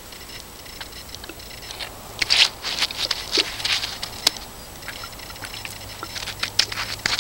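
Paintbrush bristles scrubbing and dabbing oil onto the rough hand-hewn wood of a dugout canoe, coating the drying wood. Scratchy strokes with a few sharp ticks come in two spells, about two seconds in and again near the end.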